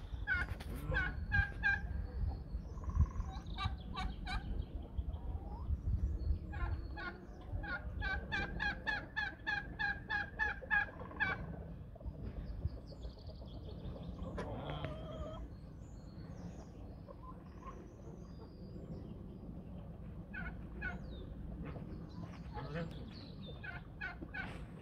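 Poultry calling, including a domestic turkey gobbling, with runs of rapid repeated call notes, the longest about four seconds long near the middle. A low rumble sits underneath, strongest in the first several seconds.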